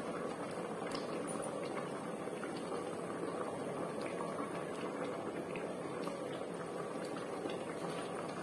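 Chicken curry bubbling steadily at a simmer in an open aluminium pressure-cooker pot, with small pops scattered through it.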